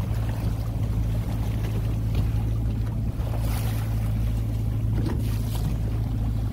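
A boat's engine runs at a steady pitch with a constant low hum, under a wash of wind and water noise. There are brief rises of hiss about halfway through.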